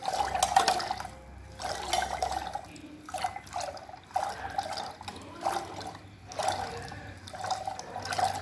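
Metal hand churner twirled back and forth in a steel pot of sugar water, sloshing and swishing in repeated strokes about once a second as the sugar is beaten in to dissolve.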